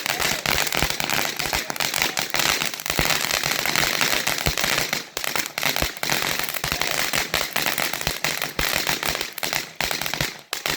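Consumer firework crackling: a dense, rapid stream of small pops and snaps.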